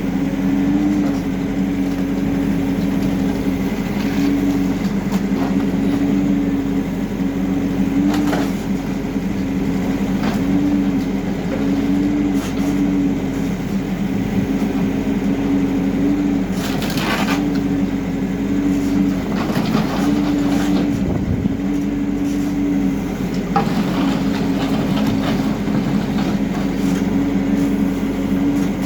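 Diesel engine of a HIDROMEK K4 Alpha backhoe loader running steadily, its pitch briefly rising now and then. Over it come a few cracks and crashes of building debris breaking, the loudest about two-thirds of the way through.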